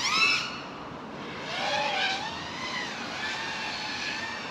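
FPV quadcopter's motors and props whining, the pitch rising and falling several times as the throttle is worked.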